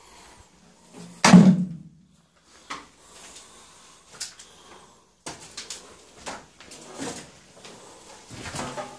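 Footsteps and clattering knocks on a rubble-strewn concrete floor: a string of sharp clicks, thickest about five to seven seconds in, with one short, louder noise about a second in.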